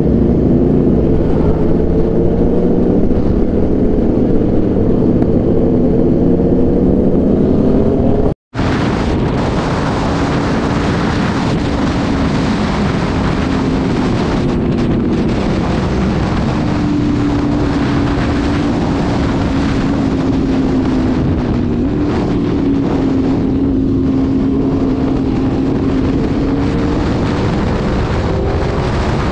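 Aprilia RSV4 1100 Factory's V4 engine through an SC Project exhaust, running steadily at riding speed, its note rising and falling gently. Heavy wind noise is on the microphone throughout. The sound cuts out for an instant about eight seconds in, and the wind is louder after that.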